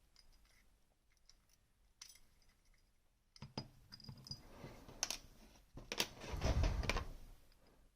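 Small metal parts of a Rosengrens disc-detainer lock clicking and clinking as the lock is taken apart by hand. The clicks are scattered and irregular, with a louder handling and sliding noise around six to seven seconds in.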